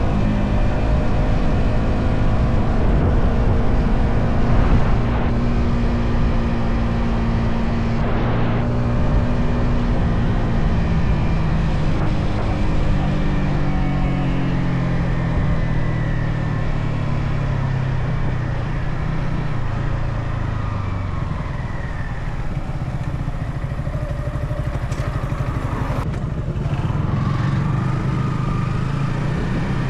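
Stock exhaust of a Yamaha XSR 155 single-cylinder engine running on the move. The engine note holds steady, falls gradually over about ten seconds as the bike slows, then settles lower and picks up slightly near the end.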